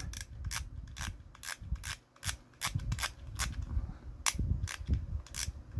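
Plastic Happy Meal figure of adult Nala being twisted, its built-in noisemaker giving a run of sharp, irregular plastic clicks and rasps, about three or four a second.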